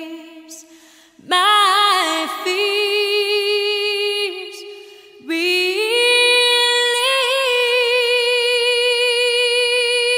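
Background music: a woman singing solo, apparently unaccompanied, in slow phrases with vibrato, ending on one long held note of about five seconds.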